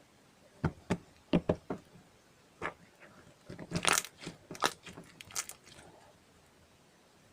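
Slime squished and worked by hand, giving a string of sharp clicks followed by a cluster of crackly pops around the middle.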